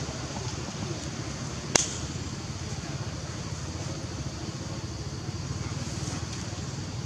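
Steady low background rumble, with one sharp click a little under two seconds in.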